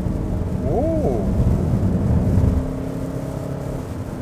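2.2-litre four-cylinder diesel engine of a Hyundai Santa Fe under full-throttle acceleration, heard from inside the cabin. The deep drone drops off about two and a half seconds in.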